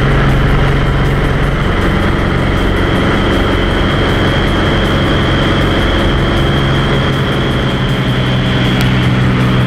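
Single-engine light aircraft's engine and propeller running steadily, with rushing air noise. A steady high tone runs above the engine drone.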